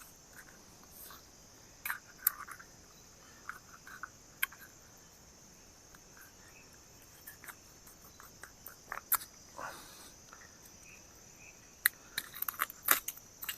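Steady high-pitched trilling of a forest insect chorus, crickets among them. Over it come scattered sharp clicks and short scrapes from a fish being cleaned by hand, with a cluster of louder clicks near the end.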